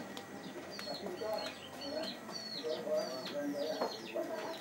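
Birds chirping, a run of short falling notes repeated about twice a second.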